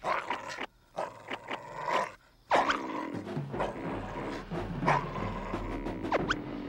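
Bulldog making noises as it bites and tugs at a sweet potato vine with its teeth, a run of short sounds with two brief pauses in the first couple of seconds, over background music.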